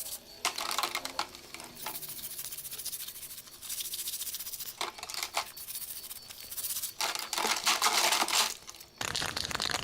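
Hand scraping and rubbing on a car's body panels during restoration, in irregular hissy strokes with short pauses. Near the end it gives way to steadier rubbing.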